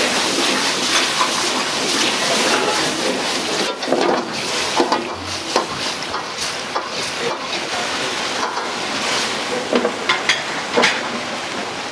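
Steel wok on a high gas burner hissing and sizzling, with steam rising off the hot pan, while a metal ladle stirs and knocks against the wok several times, most around four to five seconds in and again near ten to eleven seconds.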